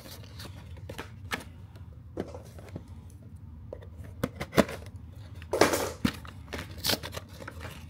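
Scissors cutting the seal of a small cardboard toy box, with scattered light clicks of the box being handled and one louder rustling cut or tear about two-thirds of the way through.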